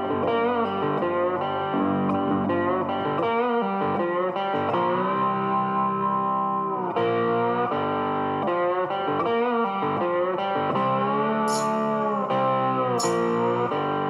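Background music led by a guitar, playing held notes that bend and slide in pitch.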